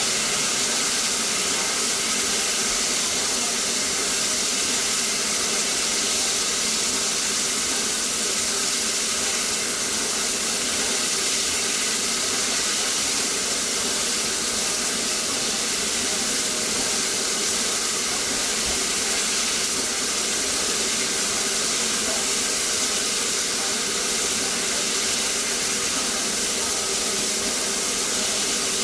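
Steam locomotive Tornado, a Peppercorn A1 Pacific, standing still with a loud, steady hiss of escaping steam that does not change.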